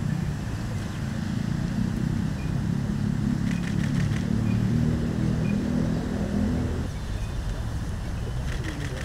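Low rumble of a motor vehicle running, swelling in the middle and easing off about seven seconds in, with a few faint clicks.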